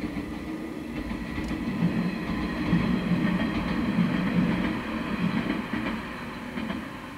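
A train passing on the Sanyo Line, its wheels running over the rails; the sound grows louder, peaks in the middle and fades away near the end.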